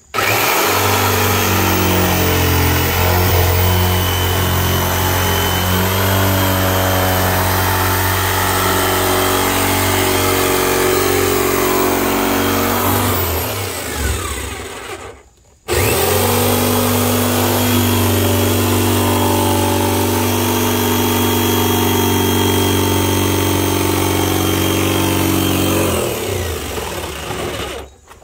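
Corded jigsaw running and sawing through the wall of a 55-gallon plastic drum, in two long cuts with a short stop about halfway through.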